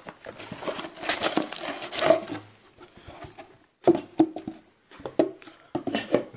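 Cardboard packaging of a Yu-Gi-Oh trading-card deluxe box being handled: scattered rustles and taps as inserts and a panel are lifted out, with a short lull midway.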